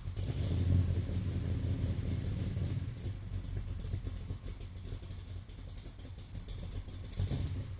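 Car engine heard through its exhaust from behind the car, running at a low steady speed, a little louder in the first couple of seconds and then settling to an even idle, with the vacuum leak repaired.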